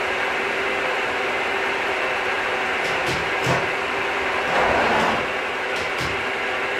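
Milling machine running steadily, with a few sharp clicks about halfway and near the end and a brief louder swell just after the middle.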